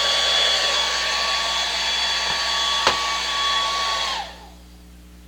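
Hair dryer running steadily with a motor whine, one sharp click about three seconds in, then switched off about four seconds in, its whine falling as the motor spins down.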